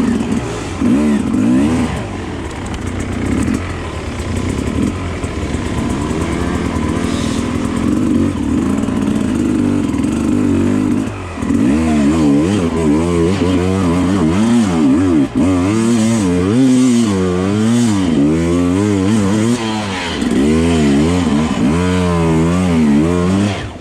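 Dirt bike engine running under way, fairly steady at first; from about halfway the revs rise and fall quickly again and again as the throttle is worked, then the sound drops away suddenly at the end.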